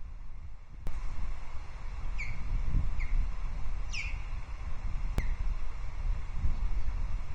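Osprey alarm calls from off camera: four short, sharp whistles, each falling in pitch, over a low rumbling background. They are calls of alarm at what may be an intruding osprey near the nest.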